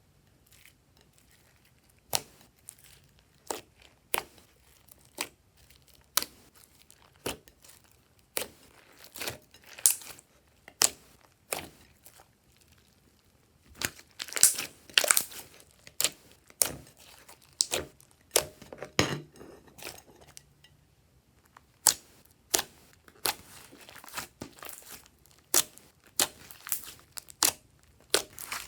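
Glossy slime being kneaded and stretched by hand, giving sharp wet pops and clicks about once a second as air pockets burst. There are denser crackling flurries about halfway through.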